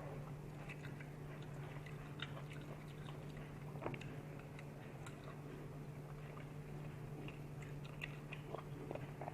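A person chewing and biting food, with scattered small clicks over a steady low hum.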